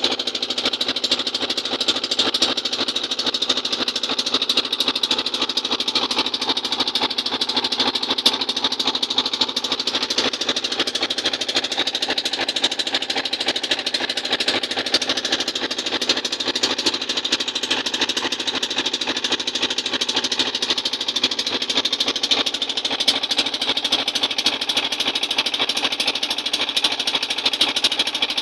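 Small fishing boat's engine running steadily under way, with a fast, even clatter.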